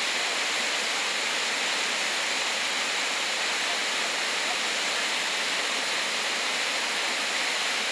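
Whitewater rapids of a rocky river, rushing steadily over boulders.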